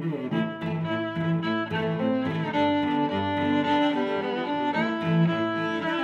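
Background music: a slow melody of held notes that changes pitch every second or so.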